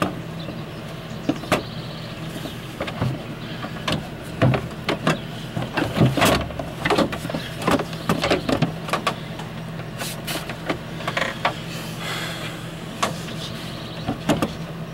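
A 1996 GMC pickup's engine idling steadily with its cooling fan removed, being run to reach operating temperature and open the thermostat. Over it come irregular metal clicks and knocks from a wrench as bolts are refitted near the radiator.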